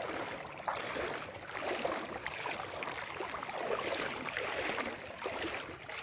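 Wading through floodwater: water swishing and sloshing around the legs with each stride, about once a second.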